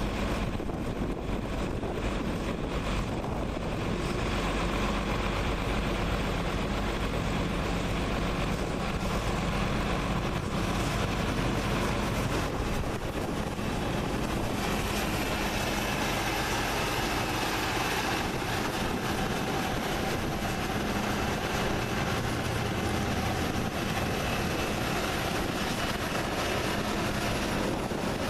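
A combine harvester running steadily, a constant low machine drone. A higher steady whine joins about halfway through.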